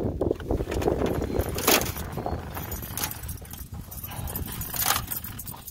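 Wind buffeting the microphone in a low rumble, with scattered clicks and rattles of fishing gear being handled in an aluminum boat.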